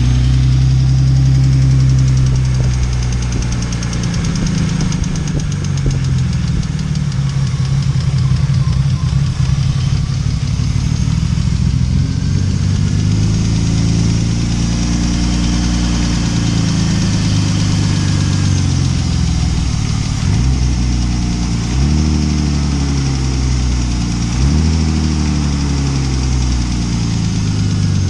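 BMW M50B25 2.5-litre straight-six running at idle with the tapping of its hydraulic lifters (lash adjusters), a knock that points to worn or oil-starved lifters. Engine speed rises and falls slowly in the middle, with two quick blips of the throttle near the end.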